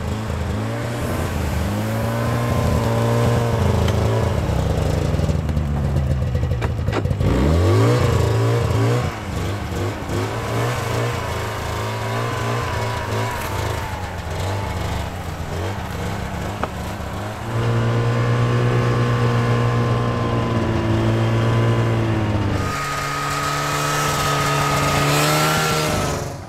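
Snowmobile engine running under load as it tows a cargo sled through deep snow, its pitch rising and falling with the throttle. About seven seconds in the engine drops sharply and climbs straight back up, and it holds a higher steady note near the end.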